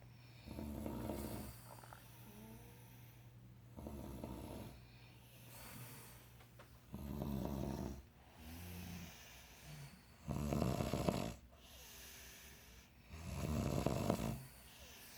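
People snoring in their sleep: a series of rough, rattling snores about every three seconds, with quieter breathing in between. The last two snores are the loudest.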